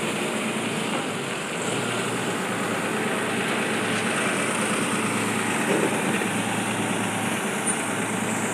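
Forklift engines running steadily at a low, even pace.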